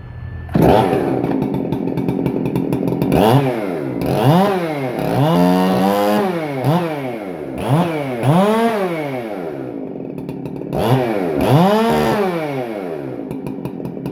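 Ported Husqvarna 372XPW 75cc two-stroke chainsaw with a buckshot muffler starting abruptly about half a second in. It is then revved again and again, the pitch climbing and dropping back each time, with one longer held rev in the middle.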